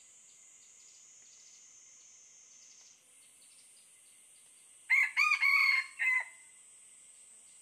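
A red junglefowl rooster crows once about five seconds in: a short, broken crow lasting a little over a second. A faint steady high insect buzz runs underneath.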